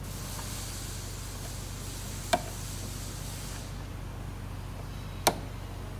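Two short, sharp clicks, about three seconds apart, as green plug-in motor connectors are pushed into their sockets on a CNC plasma table's control box, over a steady low hum and a faint hiss.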